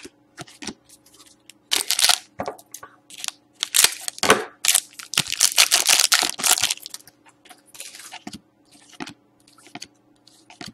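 Foil wrapper of a Panini Select hockey card pack crinkling and tearing as it is opened by hand. Short rustles come first, then a longer stretch of loud crinkling in the middle, then light clicks and slides of the cards being handled near the end.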